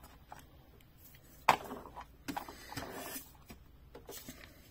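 Plastic toy truck being handled: a sharp plastic knock about a second and a half in, then short rustles and a few lighter clicks.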